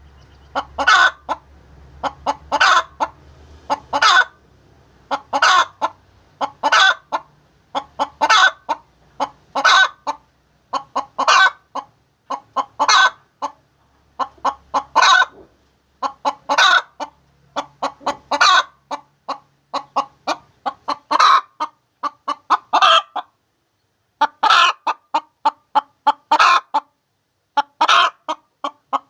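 Hen cackling her egg song: runs of quick clucks, each run ending in a louder drawn-out call, repeating about every second and a half with a short break near the end.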